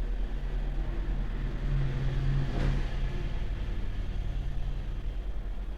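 Steady low mechanical hum, with one sharp click about two and a half seconds in.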